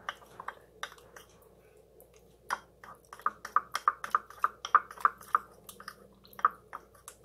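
Spoon clinking and scraping against a glass bowl while stirring a thick peanut-butter sauce. A few scattered taps, then from about two and a half seconds in a quick run of about four clinks a second that slows near the end.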